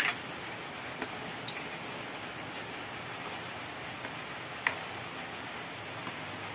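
A black ladle knocking against an aluminium wok a few times while stirring fish soup, with sharp clicks, the loudest about two-thirds of the way through, over a steady hiss.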